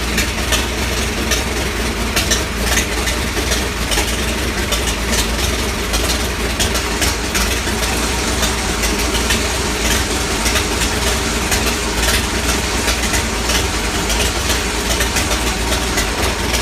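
International bulldozer engine idling steadily.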